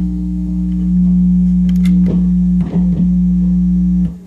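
Loud, steady low hum or feedback tone from a Dual 1009 record player's audio output. It swells over the first second, stutters a few times about two-thirds through, and cuts out near the end. The owner takes it for a grounding issue.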